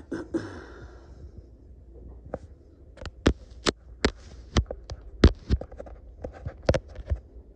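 A series of sharp clicks and taps, about a dozen, irregularly spaced, starting a couple of seconds in.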